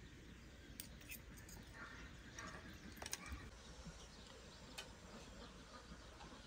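Metal spoons and forks clinking faintly against plates as people eat: a handful of sharp, irregular clicks.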